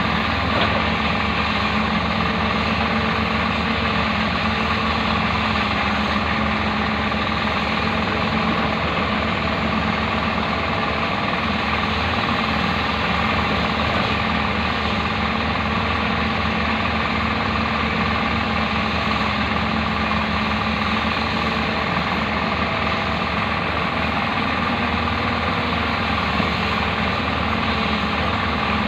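Hyundai backhoe's diesel engine running steadily, with a constant hum and no big knocks or changes in speed.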